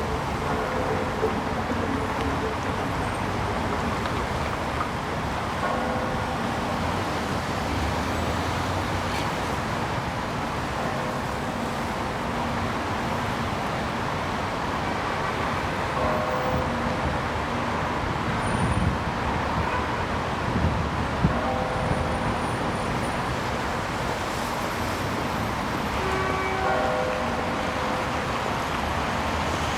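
Steady road traffic noise of passing cars, with short bell-like tones sounding a few times over it.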